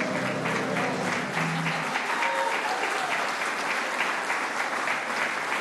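Audience applauding as a song's last held notes die away in the first two seconds; the clapping then carries on steadily.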